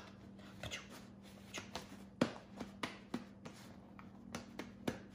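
Faint handling of paper towels: scattered small crackles, rustles and taps, about a dozen over a few seconds, over a steady low electrical hum.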